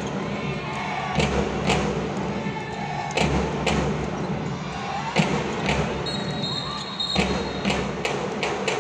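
Basketball being dribbled on the hardwood court, sharp bounces about twice a second, echoing in a large arena over steady crowd chatter. A brief high steady tone sounds about six seconds in.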